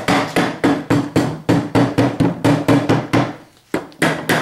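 Rubber mallet striking the sump of a Briggs & Stratton Intek lawn tractor engine in quick repeated blows, about three to four a second, to break the sump loose from the engine block. There is a short pause near the end before two more blows.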